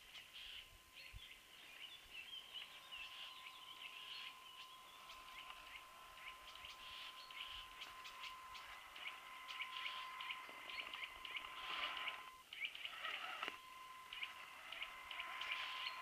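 Faint steady whine of a radio-controlled scale crawler truck's electric motor and gears, with leaves crackling under its tyres. It grows louder as the truck approaches, and the whine cuts out for about a second near the end as the throttle is let off, then resumes.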